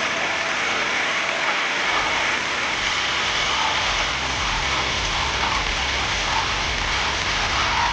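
Industrial shredder tearing up a car body: a steady, dense noise of grinding and crunching metal, with a low rumble that builds from about two and a half seconds in.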